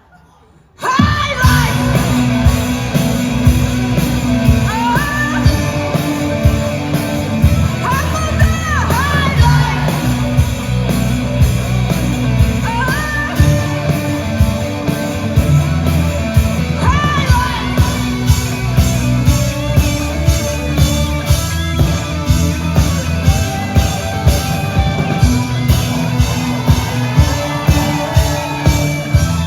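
Rock band music with a singer over a steady drum beat, cutting in sharply about a second in after a brief silence.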